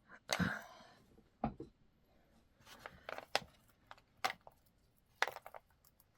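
Small handling noises of unpacking beads: a short crinkling rustle of packaging just after the start, then scattered sharp clicks and ticks as the bead strand and its wires are handled.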